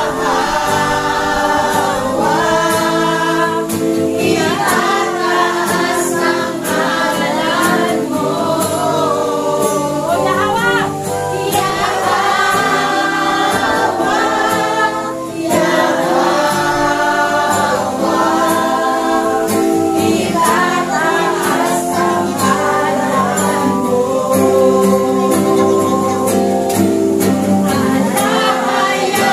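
Congregation singing a Tagalog praise song together, many voices in chorus without a break.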